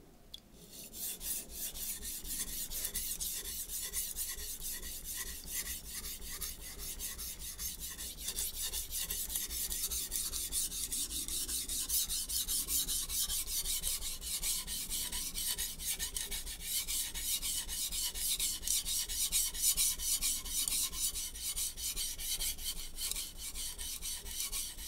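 Gihei HAP40 steel chef knife being stroked back and forth across a 120-grit Shapton Glass sharpening stone: a steady run of quick, rhythmic, rasping scrapes of hard steel on coarse abrasive, starting about half a second in.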